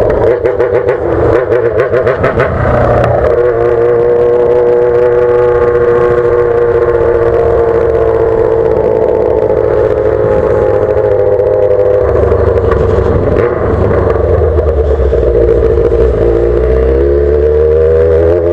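Yamaha XJ6's 600 cc inline-four engine through a straight-through open exhaust pipe, running loud under way. A rapid crackling runs over it for the first few seconds, then a long steady note sags slowly, and the revs climb again near the end as the bike accelerates.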